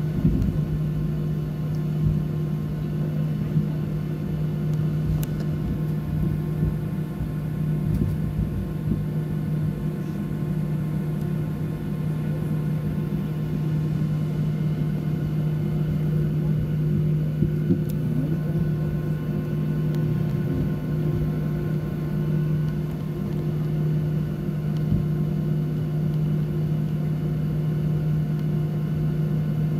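Boeing 737-800 cabin noise while taxiing: the CFM56 jet engines at idle make a steady low hum with a strong droning tone, heard from inside the cabin.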